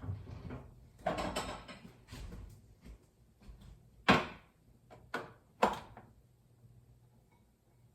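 Household handling noises: a shuffling clatter, then three sharp knocks about four, five and five-and-a-half seconds in, the first the loudest, typical of a door or drawer being shut.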